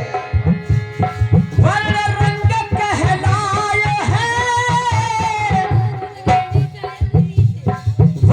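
Devotional kirtan music: a steady tabla rhythm with long held melody notes over it, the melody fading out about six seconds in while the drumming continues.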